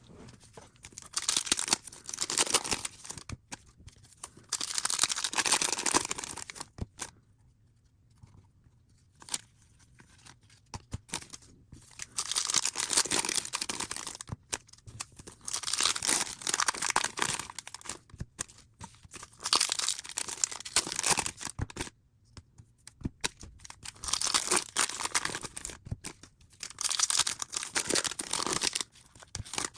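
Trading-card pack wrappers being torn open and crinkled, in repeated bursts of a second or two with short pauses between.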